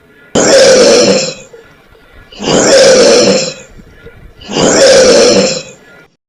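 Bear growling three times, each growl about a second long and evenly spaced.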